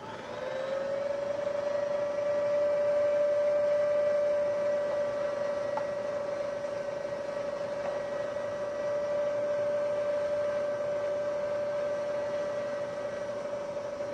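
Electric stand mixer's motor driving a food grinder attachment, grinding raw scallops: a steady whine that spins up in pitch at the very start and then holds one even pitch.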